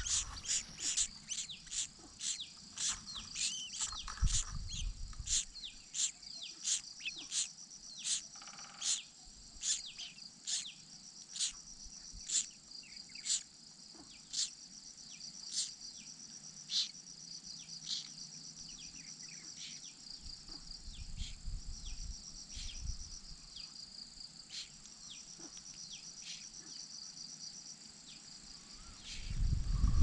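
A steady, high-pitched insect trill, broken by a few short pauses in the second half, with a run of short, high bird chirps that slide downward, about two a second for the first half and sparser later.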